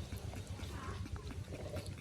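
Puppies eating rice, with many small wet chewing and smacking clicks over a steady low rumble.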